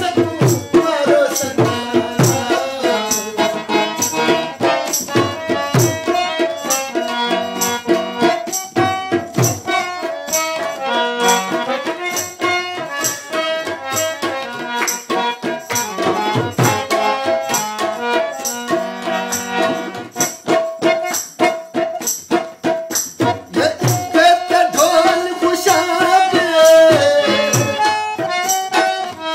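Qawwali music: a harmonium plays a melody over a steady rhythm from tabla and shaken or clapped percussion.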